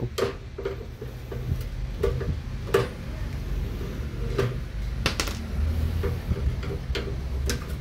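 Irregular clicks and taps of a screwdriver working at a screw on a microwave oven's metal chassis to free the cooling fan, over a low steady hum.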